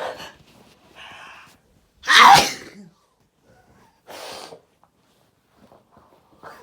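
Loud sneezing: a sharp breath in, then one explosive, very loud sneeze a little after two seconds, followed by another gasping breath in.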